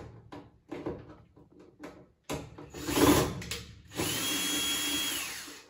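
Ryobi cordless drill/driver backing out Phillips screws from a washer's top panel. Small clicks come first as the bit is set, then the drill runs twice, about halfway through and again near the end. The second run is a steady motor whine of about a second that winds down.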